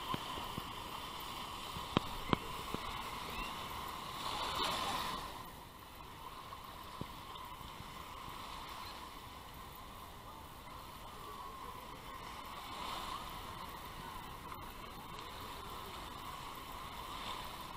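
Small waves washing and lapping in the shallows at the water's edge, with a couple of sharp knocks about two seconds in and the wash a little quieter after about five seconds.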